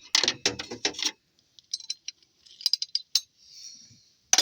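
Metal hand tools clicking and clinking: a wrench and socket being handled and worked on a bolt, a quick cluster of clicks at first, then scattered single clicks and one sharp click near the end.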